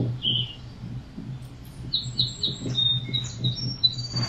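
Bristles of a cat self-groomer arch rustling softly as a cat rubs its face along them, over a steady low hum. From about halfway, a small bird gives a quick run of short, high chirps.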